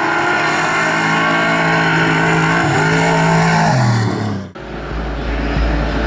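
Trophy truck's engine running hard at steady high revs, its pitch falling about three seconds in. Halfway through the sound breaks off abruptly and a deeper rumble takes over.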